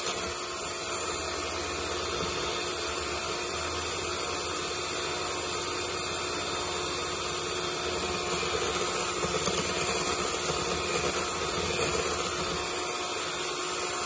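Electric mixer running steadily at an even speed, its beater whipping egg whites in a metal bowl to a froth.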